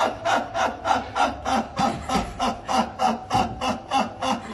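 A man laughing hard in a fast, even rhythm of short gasping pulses, about four a second.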